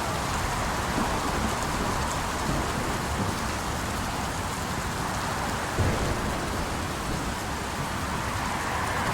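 Steady rain falling, with road traffic under it and a brief low thump about six seconds in.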